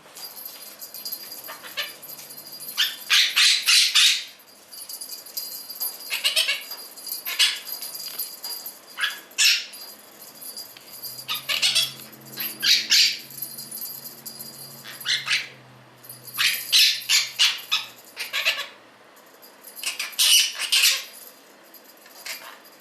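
Small metal bell toy jangled by a Quaker parrot in repeated bursts of rapid strikes a few seconds apart, its high ringing hanging on between bursts, mixed with the parrot's own calls.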